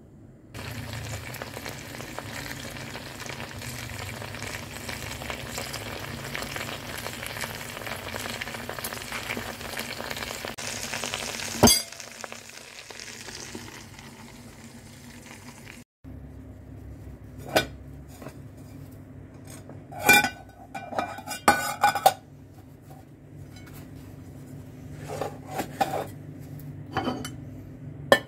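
Steady sizzling from the hot pot of layered dill rice and broad beans, ending in one sharp clink. After a pause, scattered short clinks and knocks of dishes being handled.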